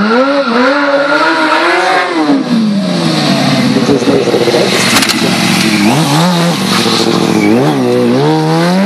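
Sport-bike engine revved up and down over and over under stunt riding, its pitch rising and falling in repeated swells, with short steadier stretches near the end.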